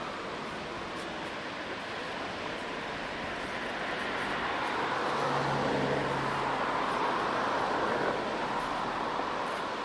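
Steady rushing of water at a river weir: a dense, even noise that swells a little in the middle, with a brief low hum about five seconds in.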